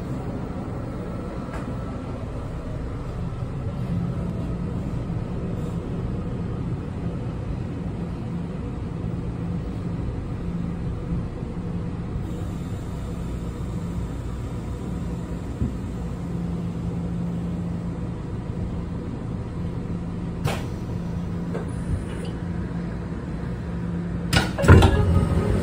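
Puyuma Express (TEMU2000) electric multiple unit heard from its vestibule while standing with doors closed: a steady low drone with a hum, a few light clicks, then a heavy clunk near the end as the train starts to pull away, the rumble growing louder after it.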